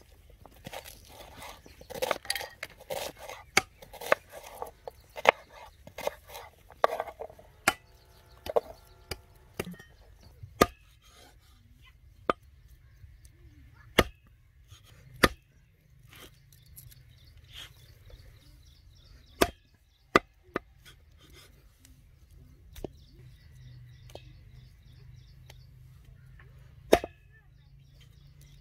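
A knife chopping onions on a wooden cutting board in quick strokes, then a heavy cleaver chopping goat meat and bone on a wooden chopping block, single hard strikes a second or several seconds apart.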